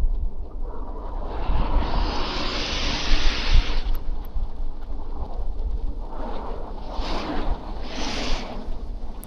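Wind buffeting an action camera's microphone as a low rumble during a bicycle ride in a snowstorm, with the hiss of tyres through wet snow and slush. The hiss swells about a second and a half in for a couple of seconds, then comes back twice more briefly near the end.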